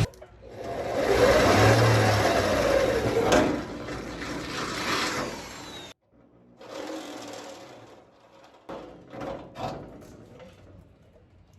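A handheld power tool runs for about five seconds and cuts off abruptly. It is followed by quieter scattered clicks and clatters of tools and metal parts being handled.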